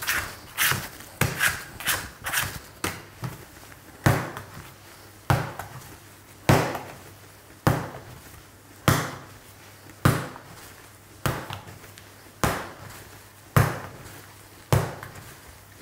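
Bread dough being slap-and-fold kneaded by hand: lifted and slapped down onto a wooden workbench, then folded over. Quicker, lighter slaps in the first few seconds, then a loud slap about once a second, as the soft dough is starting to strengthen and form.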